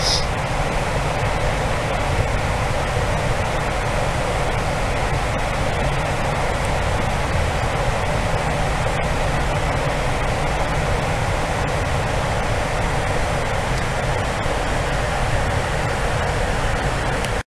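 Cabin noise of a Boeing 747-400 at cruise altitude: a steady, even rush of airflow with a low engine drone beneath it.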